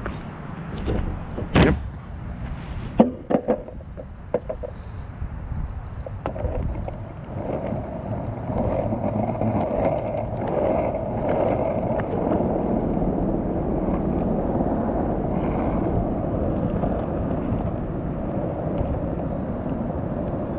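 Skateboard rolling on pavement on a shredded wheel: a few sharp clacks in the first few seconds, then a steady rolling rumble from about seven seconds in.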